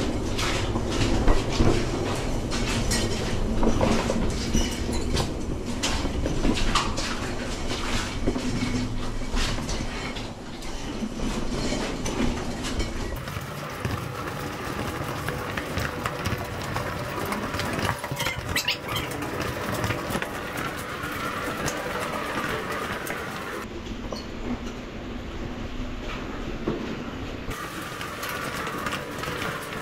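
Steel wheels of a mine ore cart rolling along the rails, rattling and clicking over the track with a low rumble, heaviest in the first third.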